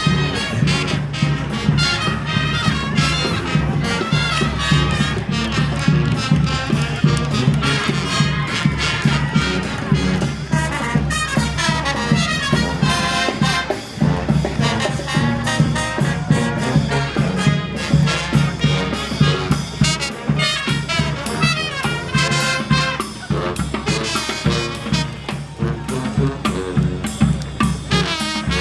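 Street brass band playing: trumpets and trombones over drums, with a steady low bass line.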